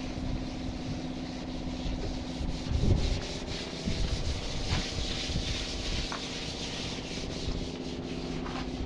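Hand scraping and rubbing on the sheet-metal rear panel of a Mercedes truck cab, in many short strokes, working off wrinkled old paint. A steady low machine hum runs underneath.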